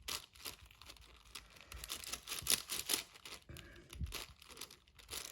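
Plastic clicking and clacking of a 6x6 Rubik's cube being scrambled by hand, its layers turned in quick irregular strokes.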